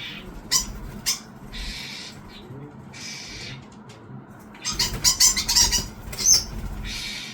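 Starling fledgling giving harsh, rasping begging calls, about half a second each and repeated every second or so, as it is fed by adult starlings. A quick run of louder, sharper calls comes about five seconds in.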